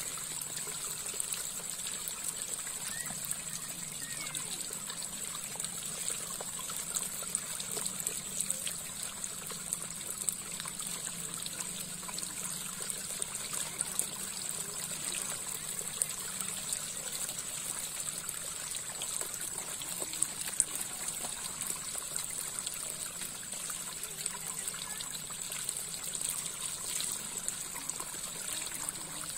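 Shallow water trickling and running steadily, with a steady high hiss over it.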